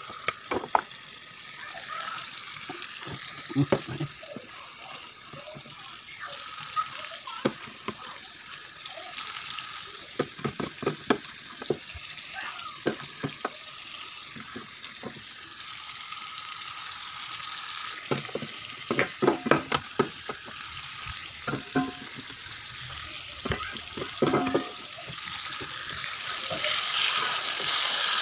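Marinated chicken sizzling in a wok, with clusters of sharp clanks and scrapes from a metal spoon against the steel bowl and the pan. The sizzle grows louder near the end.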